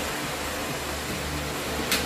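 Steady fan-like hiss and hum of room noise, with a brief high click near the end.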